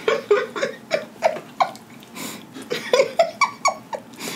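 A woman laughing in two runs of short, quick bursts, with a brief pause between them.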